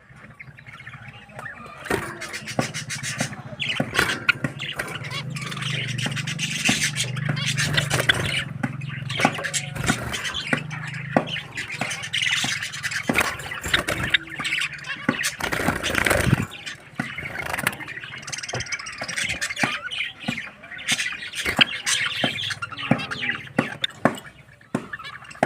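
Pet Java sparrows and zebra finches chattering, a dense run of short high chirps, calls and clicks overlapping one another. A low hum sits underneath through the first half.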